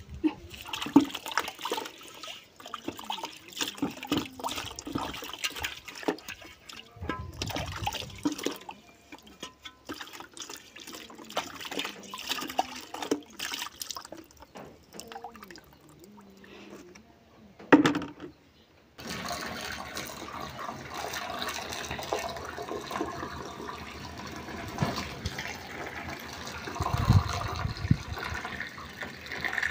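Water splashing and pouring amid scattered knocks and clatter, then, after a sudden cut about two-thirds of the way in, a steady rush of running water.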